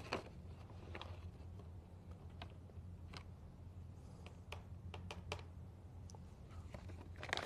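Scattered light clicks and taps as a stir stick scoops metallic pigment powder from a plastic bag and knocks it into plastic mixing cups, with a small cluster at the start and another near the end. A steady low hum runs underneath.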